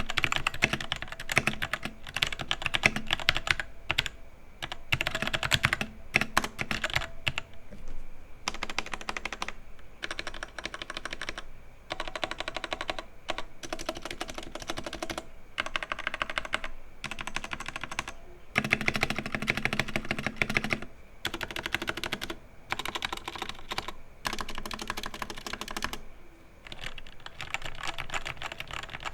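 Typing on a Vortex VX5 60% mechanical keyboard with Outemu Red linear switches and clipped stabilizers: fast runs of key clacks, broken every few seconds by short pauses.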